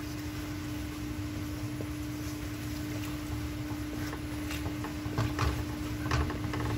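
Wooden spatula stirring thick spinach puree in a pan on the stove, giving scattered soft clicks and wet pops that grow more frequent about five seconds in, over a steady low hum.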